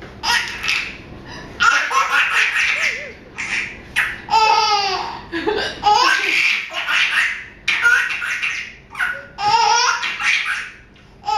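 Baby laughing hard in repeated bursts, about seven of them, each starting abruptly. The laughs are set off by a woman hiccuping between them.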